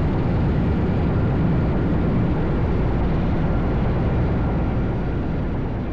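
Sikorsky S-64 Skycrane heavy-lift helicopter running close by: a loud, steady noise of rotor and turbine engines, heaviest at the low end.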